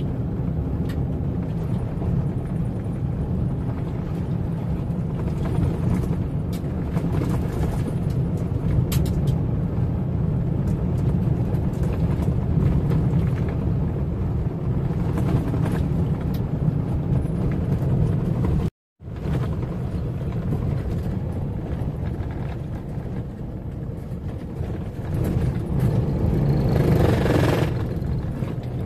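Car driving on a rough dirt road, heard from inside the cabin: a steady low rumble of engine and tyres with scattered small rattles. The sound breaks off briefly about two-thirds of the way through and grows louder for a moment near the end.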